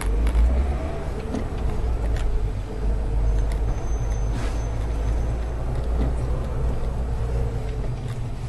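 Car driving, heard from inside the cabin through a dashcam: a steady low rumble of engine and road noise with a few light clicks and knocks.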